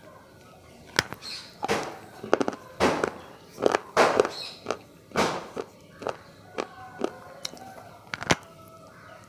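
Close-up crunching of a hard white food bitten off from pieces held in the fingers: sharp, irregular crunches about one or two a second.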